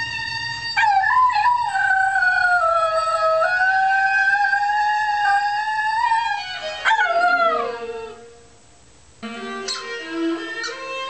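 Italian greyhound howling along with a viola: one long wavering howl of about six seconds that ends in a sliding drop in pitch, over a held viola note. After a short pause the viola plays on alone with steady notes.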